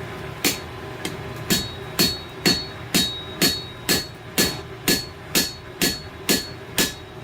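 Blacksmith's hammer striking hot steel on an anvil in a steady rhythm, about two blows a second, each with a short ringing note, as a railroad spike is forged and bent into a chain hook.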